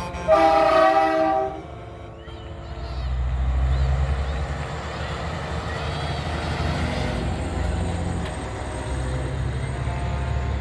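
A show semi truck's air horn blasts once, a loud chord of several tones held for about a second. The truck's diesel engine then runs low and steady as it rolls past, with its rumble swelling twice.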